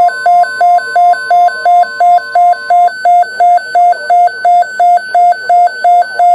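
Weather radio alert alarm beeping rapidly, about three beeps a second, announcing an incoming weather alert. Under it, the steady 1050 Hz NOAA warning alarm tone continues and cuts off about three seconds in.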